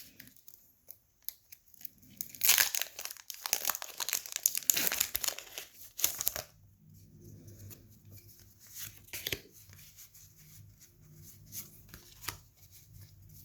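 Foil trading-card booster pack being torn open and crinkled: a few loud rips and rustles for about four seconds, then quieter handling with scattered soft clicks.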